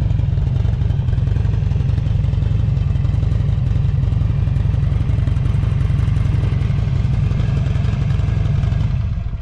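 Buell XB12SS Lightning's air-cooled V-twin with a Strike Weapon aftermarket muffler, running steadily with a deep ground-shaking rumble and no change in pitch. It runs evenly, with no abnormal noises.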